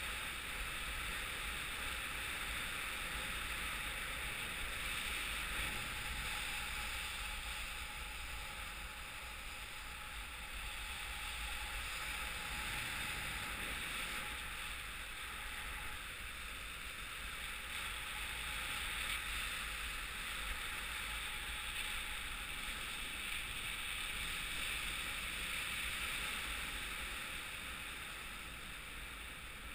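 Steady rush of airflow and wind over the camera during paraglider flight, with a low rumble of wind buffeting the microphone; it eases slightly near the end.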